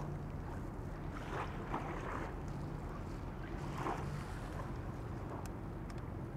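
A boat's motor running steadily at idle, a low even hum, with wind and water noise over it.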